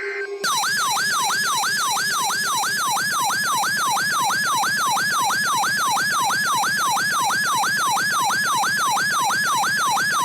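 Weather radio's alert siren sounding for a tornado watch: a loud electronic tone that sweeps down in pitch and jumps back up about three times a second. It starts suddenly about half a second in.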